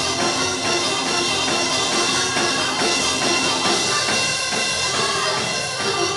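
Live church worship music: a drum kit keeping a beat under sustained organ chords.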